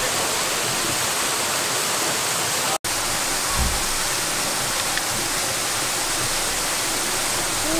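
Steady rushing noise of a waterfall pouring into a pool, cut off for an instant about three seconds in, with a couple of faint low bumps after that.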